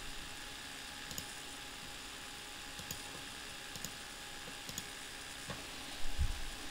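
A few faint computer mouse clicks over a steady low hiss, with a louder low thump about six seconds in.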